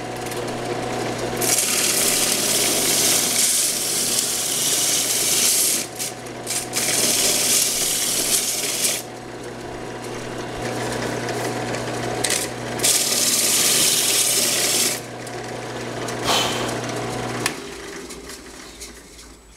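Drill press running with a spindle sanding drum, the drum rasping against the inside of a sheet-metal cylinder in three long passes to roughen its inner wall; the motor's hum stops near the end.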